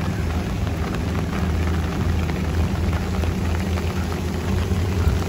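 Rain falling, over a steady low rumble.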